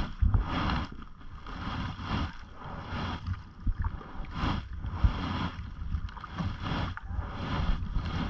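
Canoe paddle strokes in lake water, a repeated splash and swish of the blade, with wind rumbling on the microphone.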